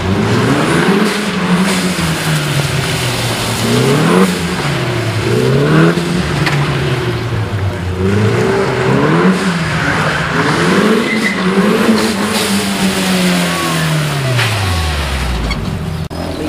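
Toyota AE86 Corolla's four-cylinder engine revving up and dropping back over and over, about six climbs in pitch, as the car is slid around tight cones. Near the end the revs fall away low.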